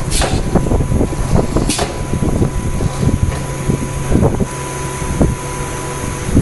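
Automatic screen printing machine for square bottles running a test cycle with its new square-bottle fixture. Its pneumatic cylinders and fixtures give rapid irregular clacks and knocks over a steady machine hum, with two short hisses of air near the start.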